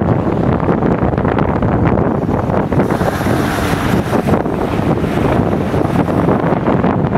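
GAZ-31012 Volga's V8 engine running loudly with the bonnet open, on its first run after many years laid up, with wind buffeting the microphone.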